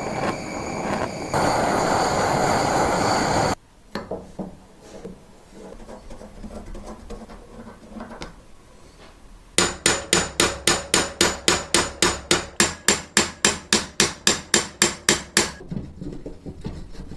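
A loud steady noisy sound with a few steady tones that cuts off suddenly about three and a half seconds in, followed by quieter scattered knocks. From about ten seconds in, a fast even series of sharp ringing strikes, about four a second, runs for some six seconds, like hammering.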